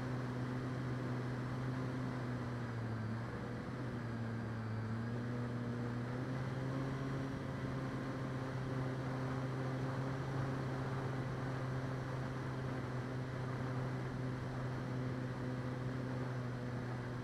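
E-flite Clipped Wing Cub's brushless electric motor and propeller running steadily in flight, a constant hum over a rush of air. The pitch sags slightly about three seconds in as the throttle eases, then rises again a couple of seconds later.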